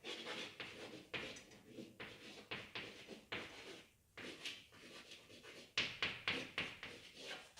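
Chalk scratching and tapping on a chalkboard in many short, irregular strokes as a word is written out, with a brief pause about four seconds in.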